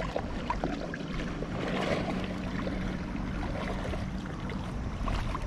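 Water lapping gently in the shallows at a pebbly lake shore, a steady wash with a few light ticks and a faint low hum in the middle.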